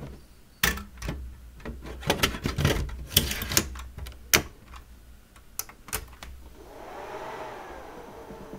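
Synology RS422+ rackmount NAS being handled and powered on: a run of sharp clicks and knocks from hands on its front panel and buttons. About seven seconds in, its cooling fans spin up with a hum that rises and then eases off as it starts booting.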